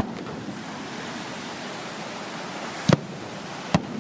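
Two fireworks shell bursts, sharp bangs less than a second apart near the end, over a steady hiss of surf and wind.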